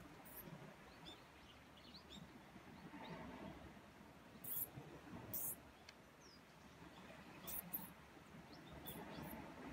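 A mouse giving short, very high-pitched squeaks every second or two while a cat paws at it and stalks it.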